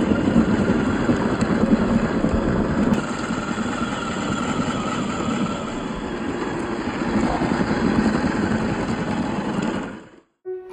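A 1/12-scale MN-86KS Benz G500 RC truck driving off-road: its small electric motor and drivetrain run steadily under a rough, noisy rumble. The sound cuts off suddenly near the end.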